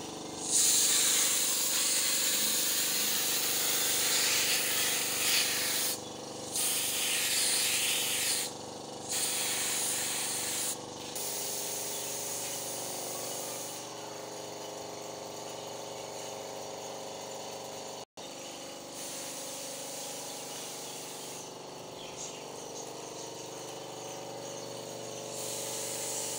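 Paint spray gun spraying, a loud even hiss in three long bursts with short stops about six, eight and a half and ten and a half seconds in. After about eleven seconds the hissing stops and only a quieter steady hum remains.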